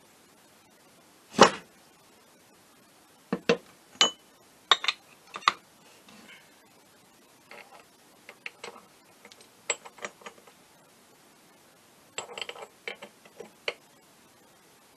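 Metal parts of a Minarelli vertical moped engine's secondary transmission (gear shafts and gears) clinking and knocking as they are handled and taken apart: scattered sharp clinks, the loudest about a second and a half in, with a quick run of them a few seconds later and another cluster near the end.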